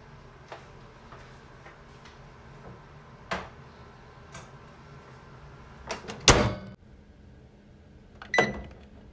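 Microwave oven running with a steady low hum and a few light clicks. A loud clunk comes a little past six seconds in, and the hum drops away just after it. A second sharp click with a brief high ring comes about eight seconds in, typical of the door latch.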